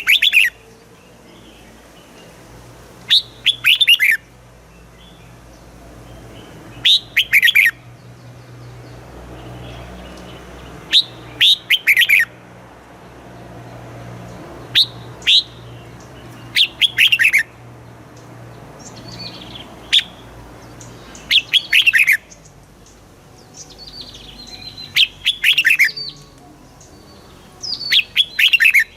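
Red-whiskered bulbul singing short, quick phrases of clear, falling whistled notes, one phrase about every three to four seconds, over a faint low hum.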